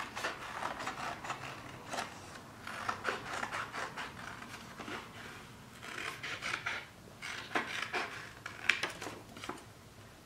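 Scissors snipping through construction paper, with the paper rustling as it is turned, in several bursts of quick snips separated by short pauses.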